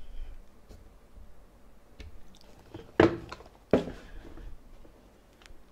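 Sneakers handled and set back down on a tabletop as they are turned around: two sharp knocks under a second apart about three seconds in, with light rustling around them.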